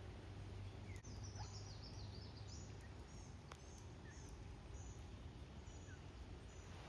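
A small bird chirping in short, high, repeated phrases over faint outdoor background noise and a low steady hum.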